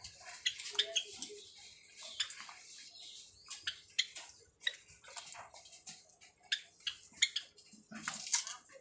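White Java sparrows feeding at a tub of soft food: a string of short, high ticks and chips, a few a second and irregular.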